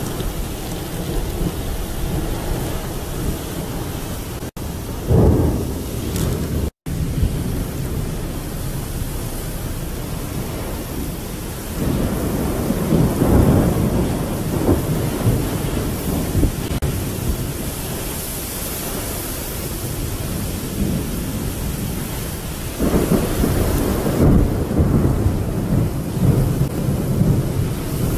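Storm noise of wind and rain: a steady rushing, broken by deep rumbling surges about five seconds in, again around twelve to fifteen seconds, and from about twenty-three seconds on. The sound cuts out briefly twice, once shortly before and once shortly after the first surge.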